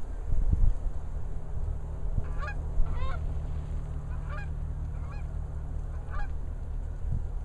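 Geese honking: several separate calls, spaced out, over a steady low rumble.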